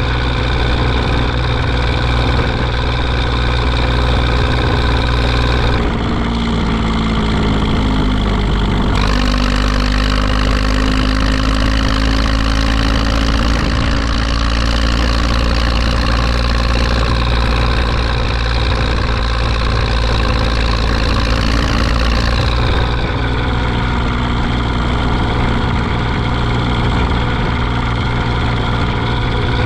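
Zetor 5211 tractor's three-cylinder diesel engine running steadily. Its tone changes for a few seconds about six seconds in, then a faint whine slowly rises in pitch, and the engine note drops slightly near the end.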